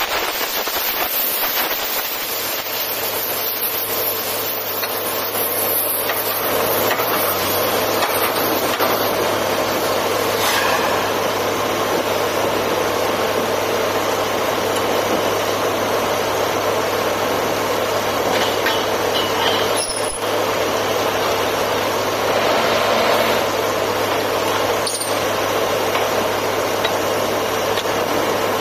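Borewell drilling rig running steadily: an even mechanical noise over a constant low hum, with two brief clicks in the second half.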